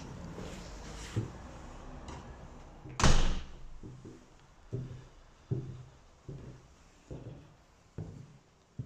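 A door slams shut about three seconds in, then footsteps thud evenly on bare wooden floorboards, a little more than one step a second.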